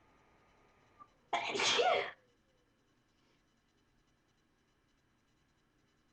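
A person sneezing once: a single sneeze, under a second long, about a second and a half in.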